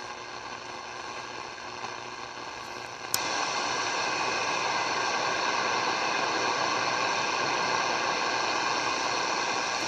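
Static and hiss from a Zenith Trans-Oceanic Royal 7000 shortwave radio as it is tuned across the band, with faint steady whistle tones in the noise. About three seconds in there is a click, and the hiss becomes louder and stays steady.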